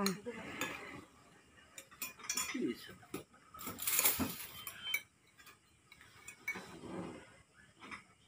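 Metal spoons clinking and scraping against plates and bowls as several people eat, in scattered short clicks with a louder clatter about four seconds in.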